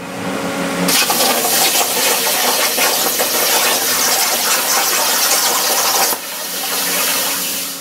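Air plasma cutter (Everlast PowerPlasma 60S with a Trafimet S75 machine torch) cutting 16-gauge steel at 60 amps: the arc fires about a second in with a loud, steady hiss that cuts off sharply about six seconds in. Before and after the arc, a quieter rush of air with a steady hum.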